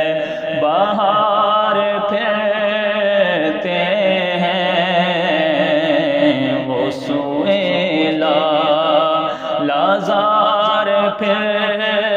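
A man singing a naat, an Urdu devotional poem, drawing the words out in long, wavering melismatic phrases with new rising phrases beginning about a second in and again twice in the second half.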